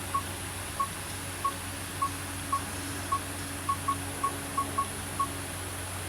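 About a dozen short, high electronic beeps, all at the same pitch and spaced unevenly, some in quick pairs. They fit the key beeps of a diagnostic scan tool as its buttons are pressed to scroll through live data to the misfire counter. A steady low hum runs underneath.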